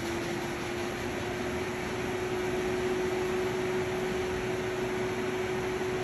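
Steam-exhaust fan of a CMA Model 180 ventless high-temperature dishmachine running: a steady whir with a steady hum that strengthens over the first couple of seconds. It is drawing the remaining steam out of the wash cavity at the end of the cycle, before the door unlocks.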